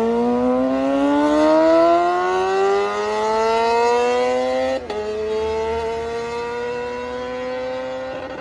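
Motorcycle with a racing exhaust accelerating hard, engine pitch climbing steadily, then a sudden drop at an upshift about five seconds in before it climbs again.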